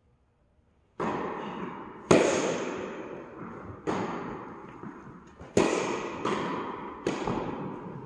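Tennis ball hit back and forth in a doubles rally: about six sharp racket-and-ball impacts with bounces, starting about a second in, each ringing out with a long echo in a large indoor tennis hall; the loudest comes about two seconds in.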